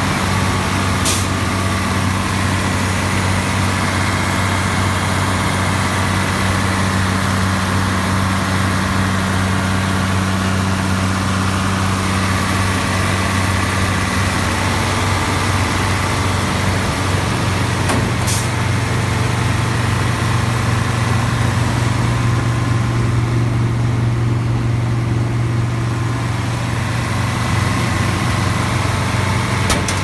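Iveco Aifo diesel engine of a combine harvester running steadily at idle with a deep, even hum, its note rising slightly a little past halfway. Two brief sharp clicks stand out over it.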